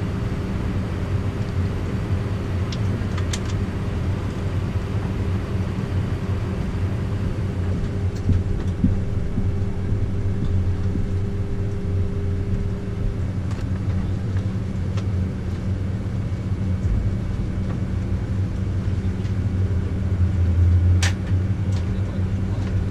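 Steady low drone inside an Airbus A320's cabin while it taxis: the idling jet engines and cabin air system. A higher hum stops about halfway through, and a few light clicks are heard, one near the end.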